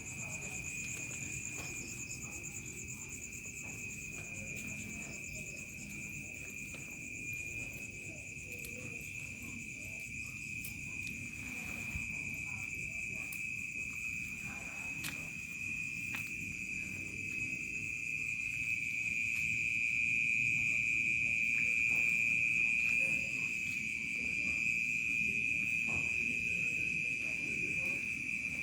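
Crickets chirping in a continuous high trill, joined by a second, higher-pitched pulsing trill. The chorus swells louder about two-thirds of the way through, over a faint low rumble.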